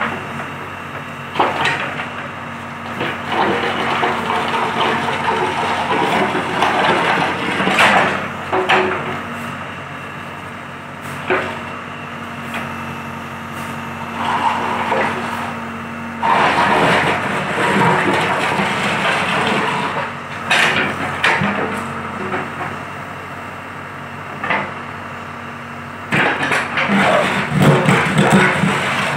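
JCB backhoe loader's diesel engine running steadily, with louder working stretches and repeated sharp cracks and crunches as the machine works.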